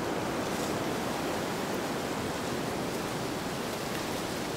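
Steady rushing wind noise with no distinct events.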